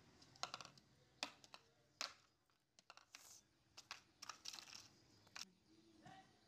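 Fingers and fingernails working through hair to pick out nits, making faint crisp clicks and short rustles at an irregular pace, about a dozen in all.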